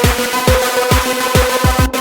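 Electronic dance music with a kick drum beating under held synth tones.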